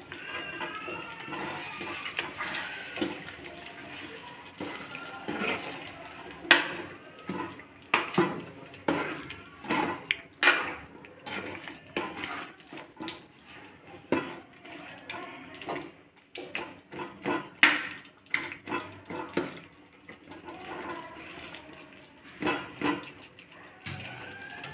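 A ladle stirring chicken curry in an aluminium kadai, knocking and scraping against the pan many times at an uneven pace, over the sizzle and bubbling of the cooking gravy.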